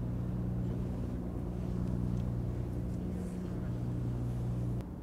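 Low, steady drone of a ship's engine, running at a constant pitch. Part of the drone cuts off with a faint click just before the end.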